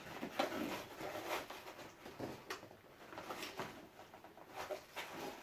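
Packaging being handled and unwrapped during an unboxing: irregular rustling and scraping with small knocks.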